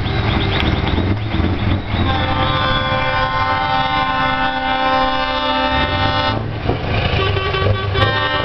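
Air horns on a Scania tractor unit blowing a long multi-note chord for about four seconds. After a short break they sound again, over the low rumble of the truck's diesel engine.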